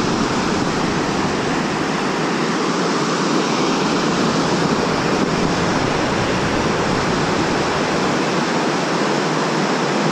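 River rapids rushing steadily: an even, continuous wash of fast whitewater.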